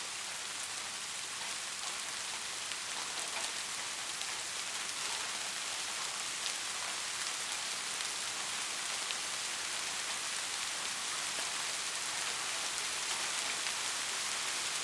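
Steady heavy rain: an even hiss flecked with many faint ticks of single drops striking.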